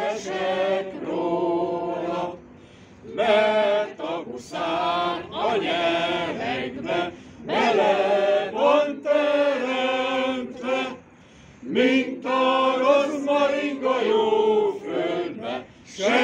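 A man singing a Hungarian folk song without accompaniment, in long phrases with short breath pauses between them.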